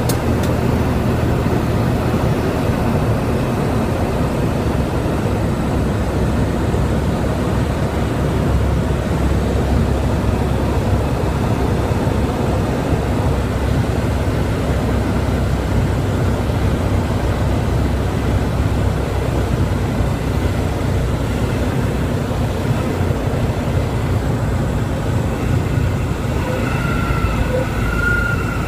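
A light single-engine propeller plane's engine and propeller run steadily, heard inside the cockpit with rushing air on the landing approach. Near the end a high, wavering tone starts up, the kind of stall warning horn that sounds as a light plane flares just above the runway.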